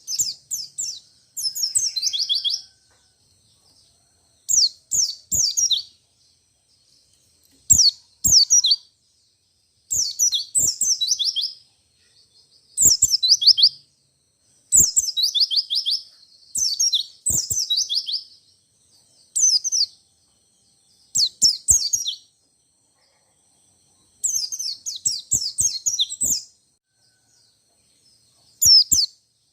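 A white-eye (pleci) sings in repeated rolling bursts. Each burst is a second or two of rapid, high, falling notes, with short pauses between bursts.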